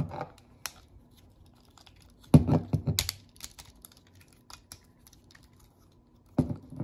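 Hard plastic parts of a Transformers Legacy United Leader Class Sandstorm figure clicking and clacking as they are twisted and snapped into place by hand. There is a cluster of louder clacks about two and a half seconds in and a denser run near the end.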